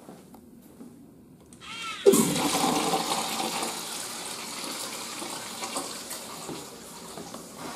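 Flush valve on a wall-hung urinal flushing: a short rising whistle as the valve opens, then a sudden loud rush of water about two seconds in that slowly dies down.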